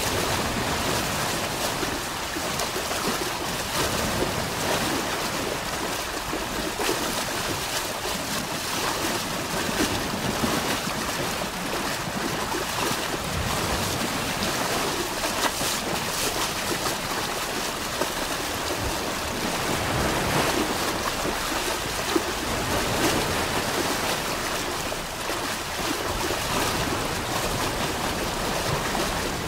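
Waterfall and rapids rushing steadily.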